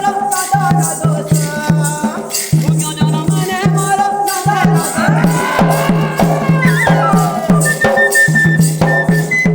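Sambalpuri folk music: a flute-like melody line over steady drumming and constant jingling percussion.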